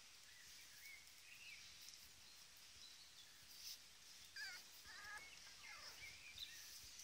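Near silence with a few faint, high, wavering squeaky animal calls, mostly about four to five and a half seconds in.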